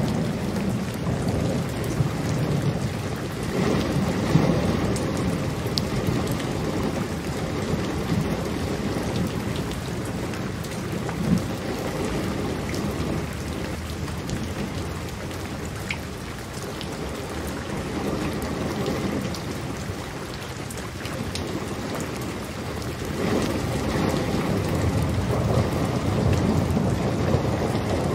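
Steady rain falling, with low rolling thunder that swells in the first few seconds and again near the end.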